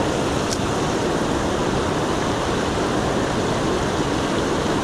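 Swift river water rushing over rocks and rapids, a steady even rush, with one light click about half a second in.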